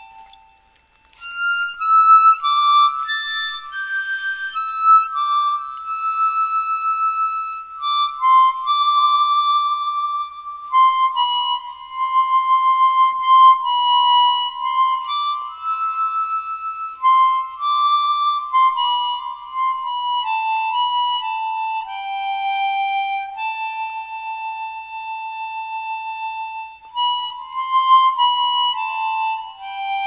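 Solo harmonica playing a melody of held single notes with no accompaniment, some notes carrying a breathy rush of air. It falls silent briefly about a second in before the tune resumes.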